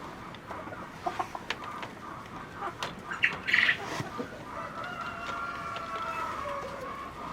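Chickens clucking in short scattered calls, then one long drawn-out call starting about two-thirds of the way through.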